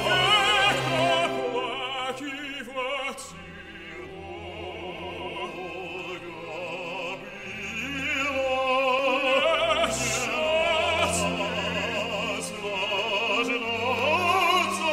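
A male opera singer singing with vibrato over a symphony orchestra. There is a softer passage from about three to seven seconds in, then it swells again.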